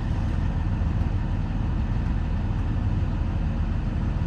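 John Deere 210G LC excavator's diesel engine idling steadily, heard from inside the closed cab as an even low hum with a hiss over it.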